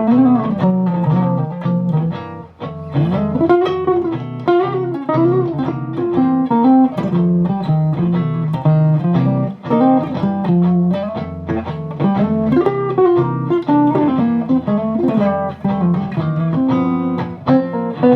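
Electric guitar played through an amp and speaker cabinet: a stream of single-note lead lines with several string bends.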